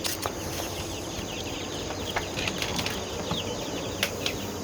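Crickets chirring steadily in the background, with a few sharp clicks and knocks, the loudest near the start and about four seconds in.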